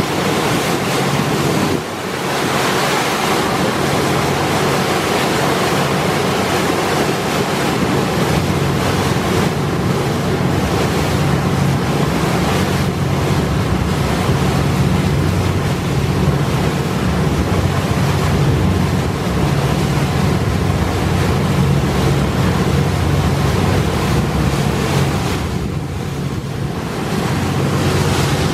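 Steady drone of a boat's engine, with the rush of river water and wind buffeting the microphone over it.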